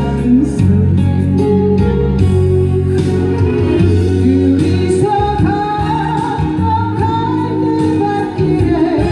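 A singer performing a Korean song medley over an accompaniment with steady bass and a regular drum beat, holding a long, wavering note through the second half.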